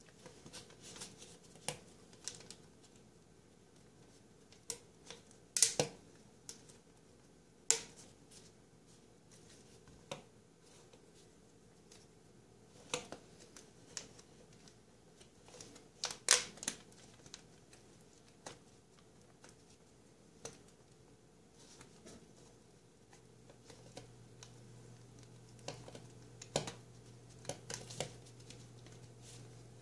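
Hands handling a flexible corrugated plastic P-trap tube and its rubber washers, making scattered light clicks and taps with a few sharper knocks. A faint low hum comes in about two-thirds of the way through.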